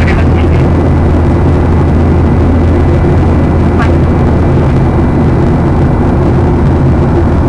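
Boeing airliner in flight heard from inside the passenger cabin: a loud, steady drone of jet engines and rushing air, with a faint steady high tone over it.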